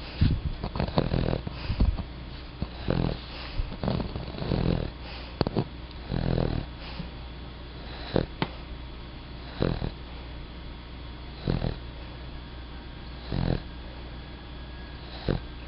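A sleeping pet snoring, with the snores coming irregularly at first and then about every two seconds.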